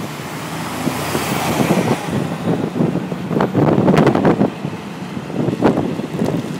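Strong gusting wind around a moving car and rumbling on the microphone, with the car's road noise underneath. The gusts swell loudest about halfway through and again shortly before the end.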